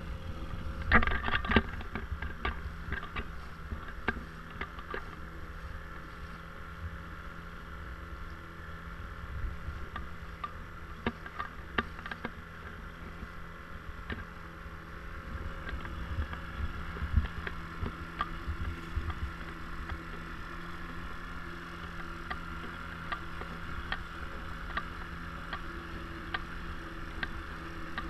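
Small boat moving through choppy water: wind buffets the microphone and water slaps against the hull, in scattered splashes that are loudest about a second in. A faint steady hum runs underneath.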